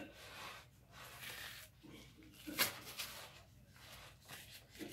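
Yellow cardboard box of Argo cornstarch being pulled open by hand: rustling and scraping of cardboard and paper, with a sharp click about two and a half seconds in.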